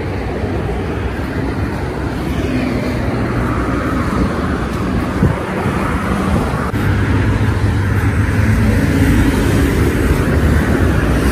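Steady road traffic noise from a nearby highway, a continuous rushing hum that grows louder from about two-thirds of the way through.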